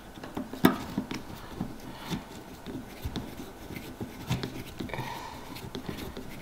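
Screwdriver driving a small screw through a metal mounting bracket into a CPU heatsink, with scattered light metallic clicks and scrapes, the sharpest about half a second in.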